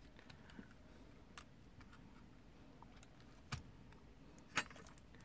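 Small clicks and taps from handling the opened Alpine 5313 cassette deck's tape mechanism, a few faint and three sharper, the loudest a sharp click near the end.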